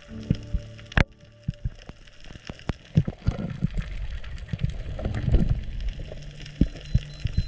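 Underwater sound picked up by the camera over a coral reef: irregular sharp clicks and knocks over a low rush of moving water, with one loud click about a second in.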